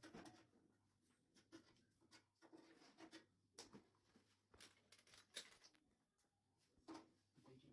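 Near silence with faint, irregular clicks and light taps, about one or two a second.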